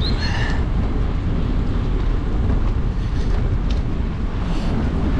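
Wind rushing over the microphone of a camera on a moving road bike, making a steady low rumble.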